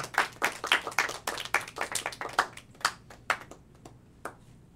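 A few people clapping in applause at the end of a poem, the single claps plainly apart; the clapping thins out about three and a half seconds in, with a last clap near the end.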